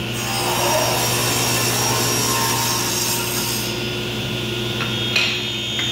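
Table saw with a 10-inch 80-tooth blade ripping a narrow strip off a board for about three and a half seconds, then the blade spinning free with a steady motor hum. A sharp knock comes about five seconds in.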